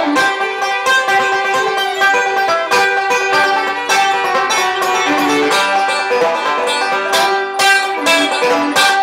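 Instrumental banjo music: a tune of rapidly plucked notes played without a break.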